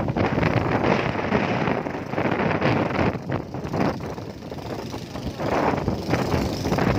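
Engine of a moving vehicle running while riding along a road, with wind buffeting the microphone.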